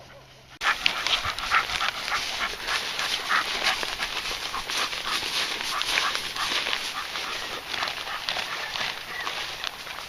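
Bird dog panting in quick, irregular breaths, starting suddenly about half a second in.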